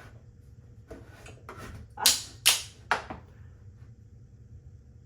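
A few sharp taps and knocks of a level being set and shifted against the wall, the two loudest about half a second apart around two seconds in.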